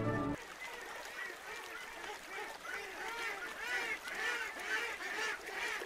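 A flock of waterfowl quacking and honking: many short, overlapping calls that grow louder after about three seconds. A piece of music cuts off just after the start.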